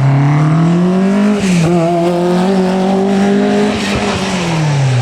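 Hillclimb race car's engine under hard acceleration, its pitch rising, dipping briefly about a second and a half in, holding high, then falling away near the end.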